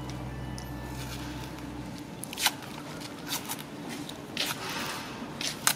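Plastic ice cream cone wrapper crinkling and tearing as it is pulled open by hand, in a few sharp crackles, the loudest about halfway through and just before the end.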